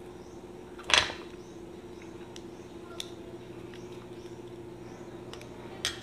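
Hands handling electrical wires and connectors on a tabletop: a short rustling knock about a second in and a few small clicks, over a faint steady hum.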